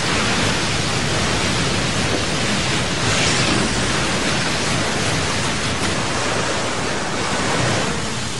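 Heavy ocean surf: large waves breaking and churning, a dense steady rush of water that swells slightly about three seconds in.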